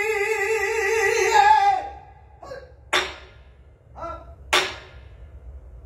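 A pansori singer holds a long note with a wide vibrato that ends about two seconds in. A few sharp strokes follow, likely the buk drum accompaniment; the two loudest are about a second and a half apart.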